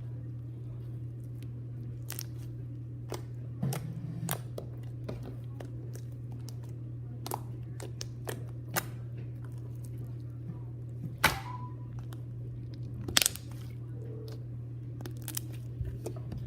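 Slime being squeezed and pressed, making scattered sticky clicks and pops, with two louder pops in the second half. A steady low hum runs underneath.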